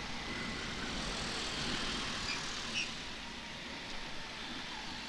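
Riding noise from a Honda TMX125 Alpha motorcycle under way: a steady rush of wind and road noise with the small single-cylinder engine running underneath, and two short high chirps a little past the middle.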